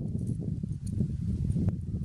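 Metal tongs moving roasted quail on a wire grill, with a few light clicks and one sharp metallic click near the end, over a constant low rumbling noise.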